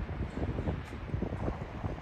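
Wind buffeting the microphone, an uneven low rumble that rises and falls in gusts.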